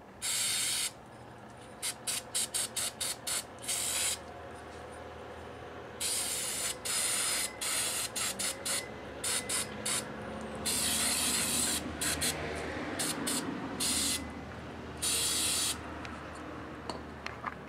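Aerosol can of carburettor cleaner spraying onto a small metal carburettor dome in a series of hissing bursts. Some blasts last about a second, and between them come runs of quick short puffs, about two to four seconds in and again around eight to ten seconds.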